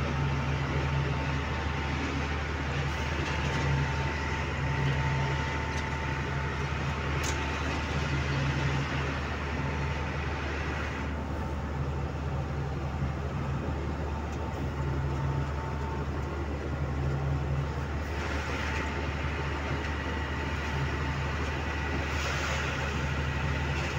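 Truck engine running and tyres on the road, heard from inside the cab while driving at a steady speed: a steady low hum with a deeper drone that swells and fades every few seconds.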